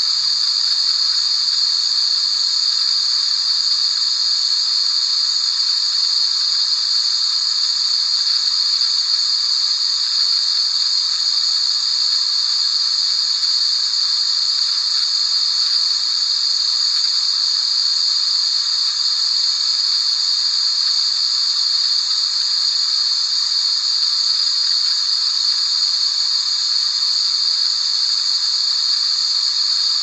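White noise: a continuous, unchanging hiss, bright and high-pitched, with almost nothing low in it.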